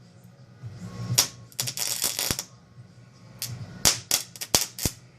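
Sharp cracks and snaps of electric arcing at the high-current output of a rewound microwave oven transformer as a small metal piece melts through, in irregular clusters over the transformer's low hum.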